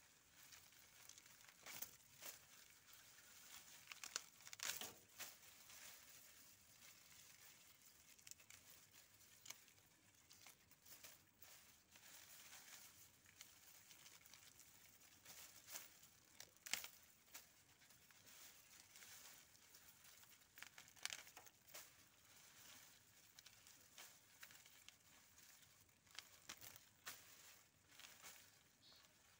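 Faint, irregular rustling and crackling of harvested lemongrass stalks and dry leaves being gathered and handled by hand, with a few louder crackles.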